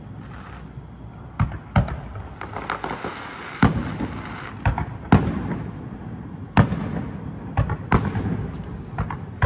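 Aerial firework shells bursting overhead: a run of about a dozen sharp bangs at uneven intervals, some close together in pairs.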